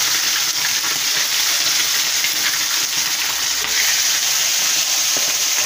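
Raw chicken pieces frying in very hot oil in a frying pan: a loud, steady sizzle as more pieces go in, the oil hot enough to spatter.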